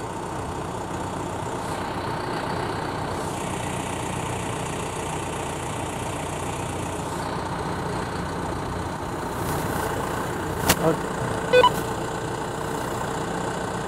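Tractor engine running steadily while the front loader is worked. A sharp click about ten and a half seconds in, then a short beep.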